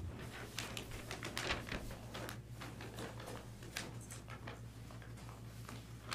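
Irregular light rustles and clicks of paper sheets being shuffled and handled on a table, over a steady low hum.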